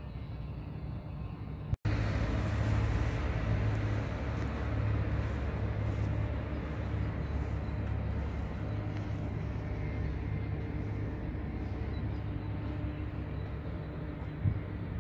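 Outdoor city street ambience: a steady low rumble under a wash of noise. It drops out for an instant about two seconds in and comes back louder, with a brief thump near the end.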